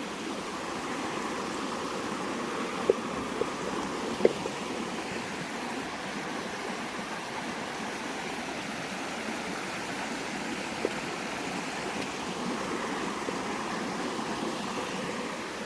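River water rushing steadily over rocks, a constant even flow. A few sharp clicks stand out about three to four seconds in and once more near eleven seconds.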